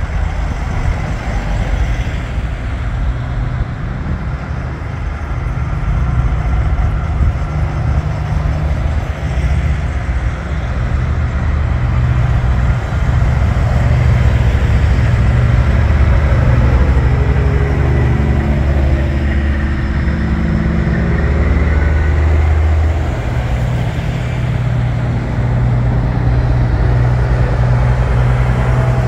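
Diesel engines of big-rig semi trucks rumbling as a line of them drives past one after another. A little past halfway an engine note drops in pitch as one truck goes by.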